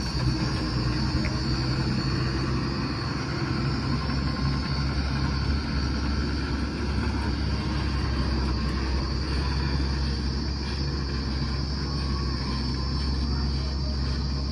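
Ashok Leyland tipper truck's diesel engine running with a steady low rumble as the truck drives away over dirt ground.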